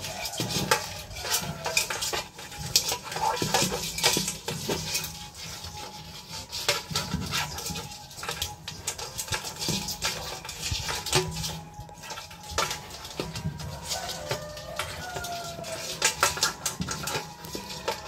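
A rice crab handled in a wet stainless steel basin: its legs and claws click, tap and scrape irregularly against the metal.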